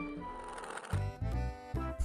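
Background music, with the held notes fading out and a louder jingle with a low beat starting about a second in.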